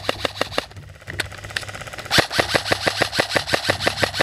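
Airsoft rifle firing in full-auto bursts: a short burst ending about half a second in, a couple of single shots, then a longer burst of about seven shots a second from about two seconds in.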